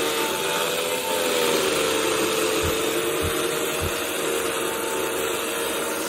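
ATLAS diamond milling machine running and milling concrete: a steady grinding noise over a motor tone that wavers slightly in pitch. Three short low knocks come in the middle, a little over half a second apart.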